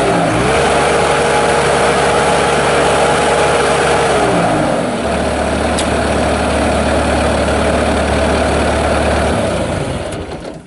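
Bobcat S250 skid steer's Kubota turbo diesel engine running: it speeds up about half a second in, holds a steady higher speed, then drops back to a lower steady speed about four and a half seconds in. The sound falls away near the end.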